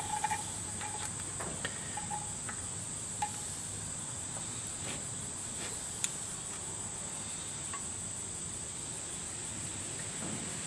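Light metallic clicks and taps from hand work on parts at the front of a bare Cummins 8.3L diesel engine block, several in the first three seconds and one sharper click about six seconds in. A steady high-pitched drone runs underneath.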